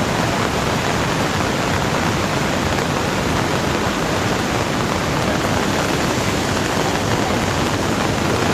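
Loud, steady rush of water, an even noise with no breaks.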